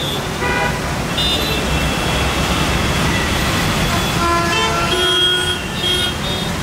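Jammed road traffic: a steady din of vehicles with car horns honking again and again, several at once around four to five seconds in.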